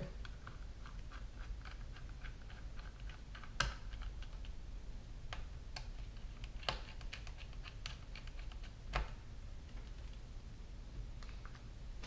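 Small screwdriver and screws clicking and ticking against the open aluminium case of a MacBook Pro as the hard-drive bracket is screwed back in, with a few louder sharp taps.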